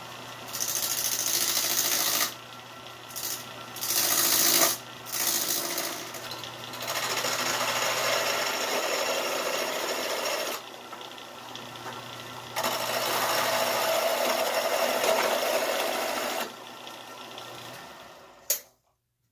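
Craftsman Model 103 four-speed lathe running at low speed with a steady motor hum, while a hand tool cuts down the corners of a square wooden blank in rasping spells of a few seconds each. Near the end the lathe is switched off, and the hum stops with a sharp click.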